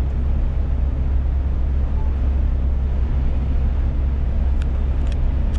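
Steady low drone of a Scania S500 truck at highway cruising speed, heard inside the cab: engine and road noise with no change in pace. A few faint ticks come near the end.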